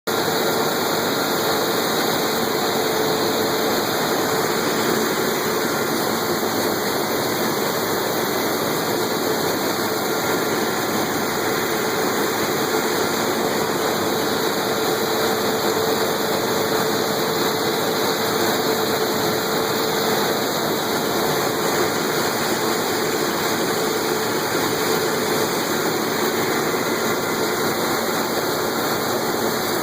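Harvest machinery engine running steadily: a dense, even mechanical noise with a faint steady hum, unchanged throughout.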